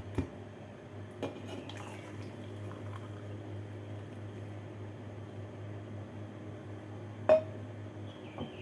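Kitchenware clinking as the drink is prepared: a few light knocks, then one sharp, ringing clink about seven seconds in, over a steady low hum.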